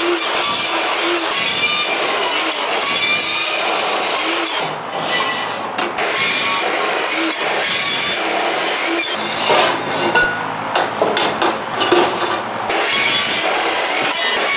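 DeWalt chop saw cutting through steel stock: a harsh, steady grinding screech of the spinning wheel in metal. It eases briefly about five seconds in and wavers between about nine and twelve seconds.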